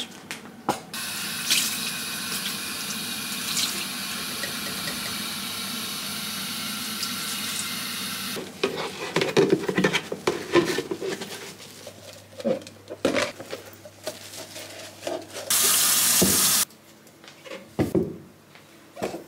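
Kitchen tap running into the sink for several seconds while storage containers are washed, then the containers knocking and clattering as they are handled, and a short loud rush of water near the end.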